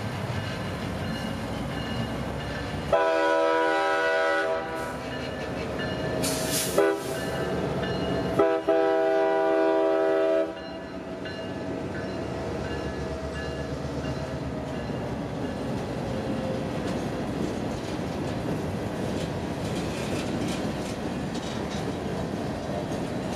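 Freight locomotive's multi-chime air horn sounding for a grade crossing: a long blast, a brief toot, then another long blast. The train then rolls steadily past, wheels clacking over the rail joints.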